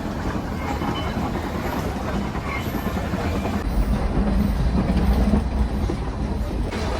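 Nilgiri Mountain Railway toy train coach running on the steep mountain line: a steady low rumble and rattle of the train in motion, a little louder about four to five seconds in.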